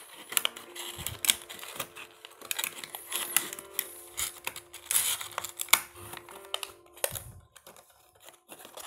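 Handling of toy packaging: a white moulded insert holding a small alloy toy wheel loader is slid out of and back into its cardboard box, making a quick irregular run of clicks, scrapes and rustles that thins out near the end.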